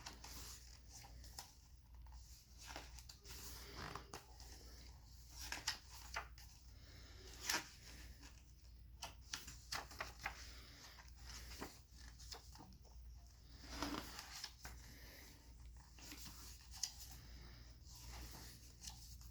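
Pages of a picture book being flipped through by hand: faint, irregular paper rustles and swishes, over a low steady hum.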